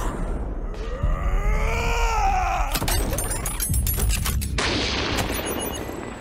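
Cartoon sound effects: a sliding, groan-like tone that rises and falls, then a rapid volley of shooting effects followed by a steady hiss.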